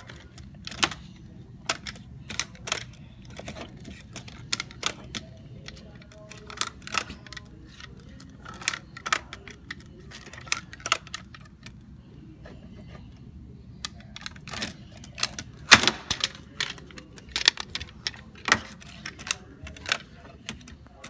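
Irregular sharp clicks and taps of hard plastic from a toy camera being handled and pressed on a stone countertop. They come in uneven clusters, with the loudest run about two thirds of the way in.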